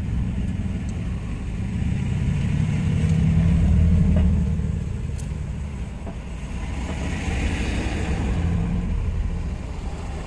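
Motor vehicles driving past, heard from inside a parked car: a low engine rumble swells up to its loudest about four seconds in and fades, then a second vehicle swells past with tyre hiss around eight seconds in.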